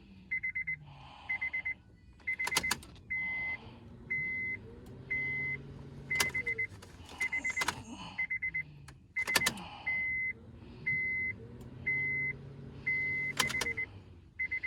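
High-pitched electronic beeping in a repeating pattern, a quick run of short pulses followed by a single longer beep about once a second, while a 2012 Honda Accord's immobilizer is being programmed for a new key with a scan tool. A few sharp clicks sound among the beeps.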